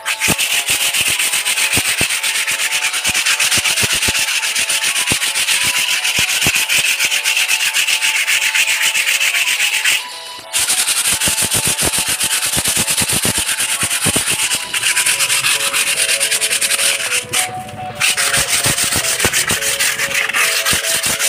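Coarse 80-grit sandpaper rubbed by hand in rapid back-and-forth strokes over a dried putty texture wall, scraping it smooth. The sanding stops briefly twice, about halfway through and again near the end.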